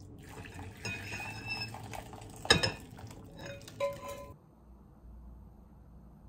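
Broth pouring from an enamel saucepan into a ceramic bowl, with light clinks of the pot and chopsticks against the dishes and a sharp knock about two and a half seconds in. The sound cuts off suddenly about four seconds in, leaving a faint low hum.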